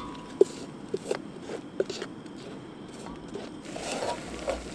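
Wooden spatula scraping and knocking around a metal camp pot as flour is stirred in, with a string of short sharp taps, the loudest about half a second in.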